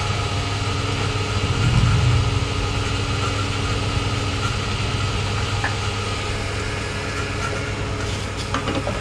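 A motor running steadily with a low hum, swelling briefly about two seconds in.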